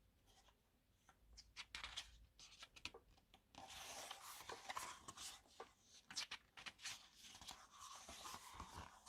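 Faint paper handling as the pages of an album photobook are turned: soft ticks and rustles, and from about a third of the way in a steadier sliding, rubbing sound of paper.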